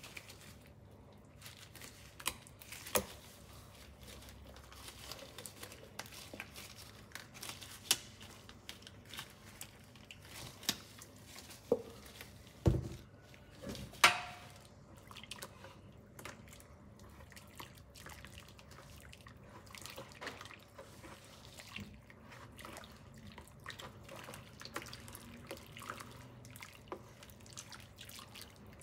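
Quiet liquid handling sounds: hair dye dripping into hot water in a plastic bowl and being stirred in with a tint brush, with scattered small clicks and a few sharper knocks around the middle.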